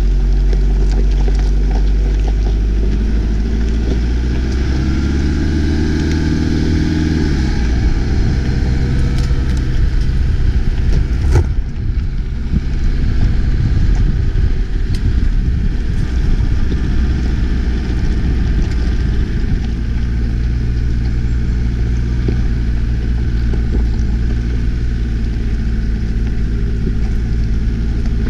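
Toyota Hilux pickup driving along a gravel track, heard from a camera on the outside of the body: the engine climbs in pitch a few seconds in, then drops back as it shifts, over a steady rumble of tyres on stones, with one sharp knock about eleven seconds in.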